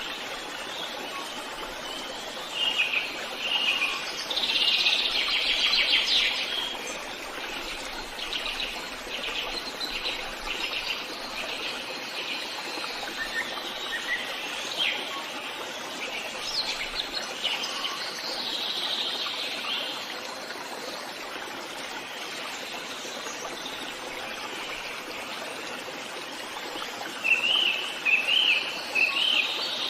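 Forest ambience: several birds singing and calling in short phrases over a steady rushing background of running water or wind in trees, with the loudest bursts of song a few seconds in and near the end.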